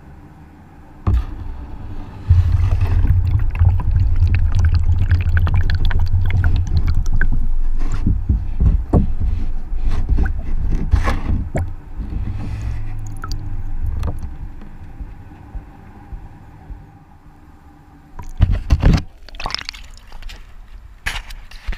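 Water poured from a glass jar into a plastic bucket onto a GoPro camera lying in the bottom, then sloshing and gurgling around it, heard deep and muffled from inside the bucket. The sloshing fades out, and a couple of sharp knocks come near the end.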